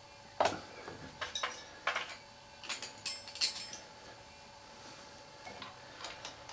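Steel hand tools clinking against each other and against the engine: a dozen or so sharp metallic clinks with a brief ring, in small clusters with a quiet stretch in the middle, as a spanner is taken up to readjust the valve clearance on the rocker's adjuster. Near the end a couple of lighter clicks as the spanner meets the adjuster's lock nut.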